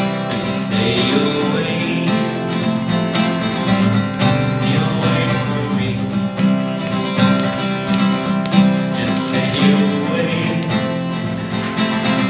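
Acoustic guitar playing a steady solo accompaniment, with no break in the music.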